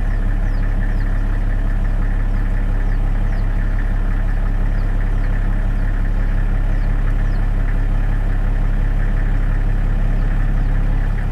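Steady low drone of an idling engine, unchanging throughout, with faint short high chirps recurring over it every second or so.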